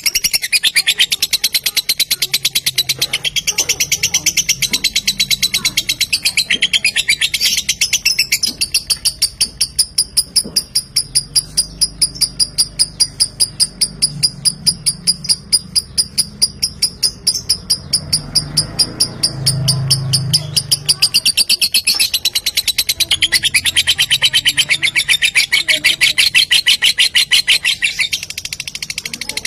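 Fischer's lovebird singing a long 'ngekek' chatter, the drawn-out shrill song that keepers use as a lure to set other lovebirds singing. It is a fast, dense chatter that settles in the middle into an even run of sharp high notes about four a second, then quickens again near the end.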